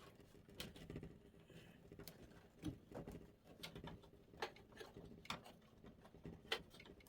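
Faint, scattered plastic clicks and taps as a PSU's CPU power cable is handled and pushed into its motherboard socket, over a faint low hum.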